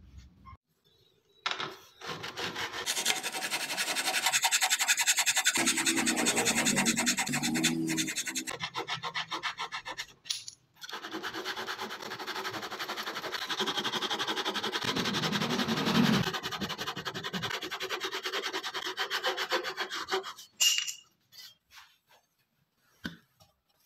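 Double-edged (ryoba-style) hand saw cutting through wood with fast, even strokes, in two bouts of about nine seconds each with a short pause between them. A few light knocks near the end.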